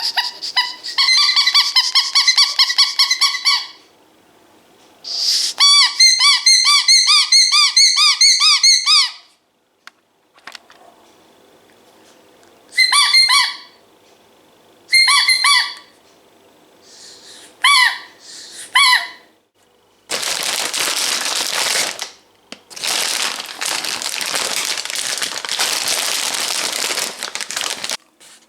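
Rubber dog squeaky toy squeezed in fast runs of squeaks, then in short groups of two or three. For the last eight seconds or so there is a loud, even noise with no squeaks.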